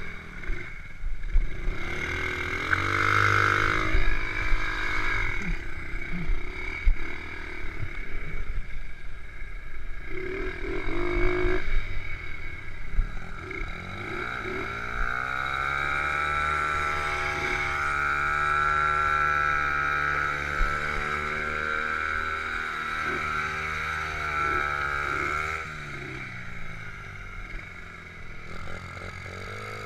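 Honda Monkey's small single-cylinder four-stroke engine, at 72cc, running as the bike is ridden, with uneven revs at first. About twelve seconds in the engine note rises and holds steady, then drops back down near the end.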